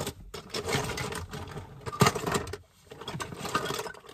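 Small plastic toy parts being handled and rummaged through: uneven rustling with many small clicks, and a sharper click about two seconds in.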